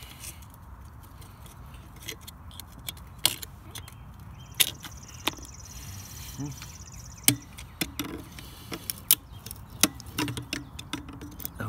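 Hand tools clicking and scraping against the metal shaft and seal parts of a pump motor, a scatter of sharp clicks and clinks as pliers and a metal bit work the rotary seal's retainer clips loose.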